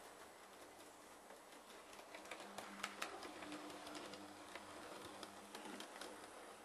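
Model train running on a layout: a faint small-motor hum with many light, irregular clicks, most of them from about two to six and a half seconds in.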